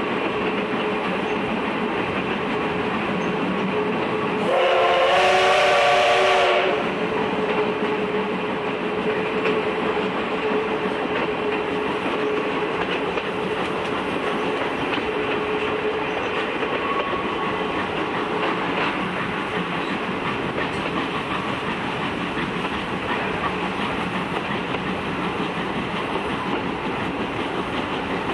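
C58 steam locomotive train running, heard from an open coach window: the steady rumble and clickety-clack of the coach wheels over rail joints. About five seconds in, the locomotive's steam whistle is blown once, for about two seconds.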